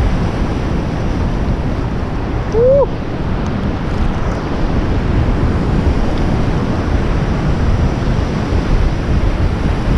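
Shallow ocean surf washing and sloshing close to the microphone, with wind buffeting it in a steady, loud noise. A brief rising squeak comes just under three seconds in.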